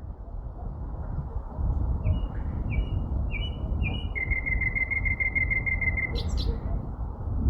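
A sparrow singing: four separate clear notes, then a fast even trill of about nine notes a second, then two sharp high notes at the close. A steady low rumble lies underneath.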